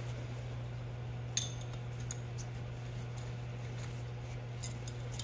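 Metal hand tools and small parts clinking as they are handled on a workbench: one sharp, ringing metallic clink about a second and a half in, then a few lighter clicks, over a steady low hum.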